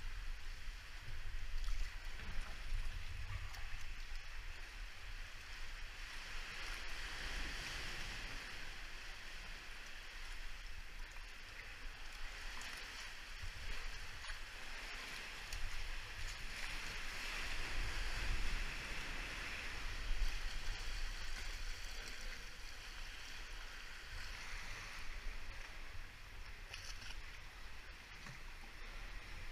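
Sea kayak paddle strokes splashing and water sloshing around the hull, in a steady wash that swells and eases every few seconds over a low rumble.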